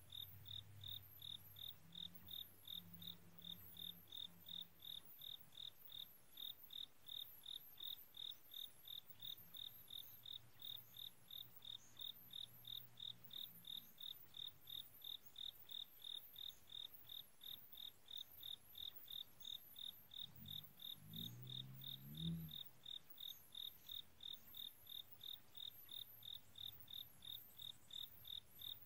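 A cricket chirping in a steady, even rhythm, a few high chirps a second, under a faint low hum. A brief, louder low sound swells and fades about three-quarters of the way through.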